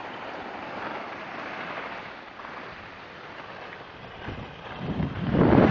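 Skis hissing and scraping over packed snow, mixed with wind rushing on the microphone; the rush swells to its loudest near the end.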